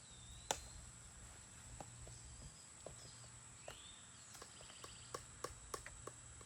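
Scattered clicks and knocks of climbing gear as a hunter climbs a tree on a rope aider: one sharp knock about half a second in, then a quick run of clicks near the end. Behind them runs a steady high insect drone, with a couple of short rising bird chirps.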